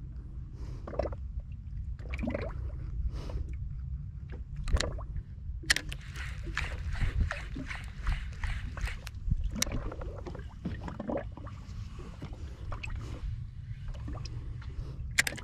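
Water sloshing and slapping against a boat's hull in irregular splashes, busiest in the middle, over a steady low rumble.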